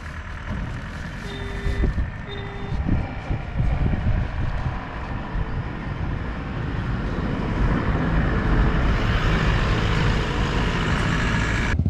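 A large road vehicle's engine running, growing louder in the last few seconds as it comes close, with two short beeps about a second apart in the first few seconds.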